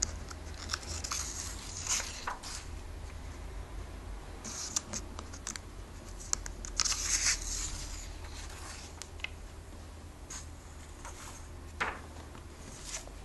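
Glossy comic-book pages being turned by hand, with a few short swishes and rustles of paper. A couple of light knocks near the end as the comic is handled on the wooden table.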